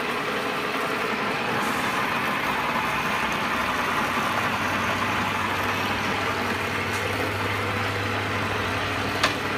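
Cincinnati Bickford Super Service drill press running under power, spindle turning with the power feed engaged, giving a steady mechanical whir of motor and gearing. A low steady hum joins in about two and a half seconds in, and there is a sharp click near the end.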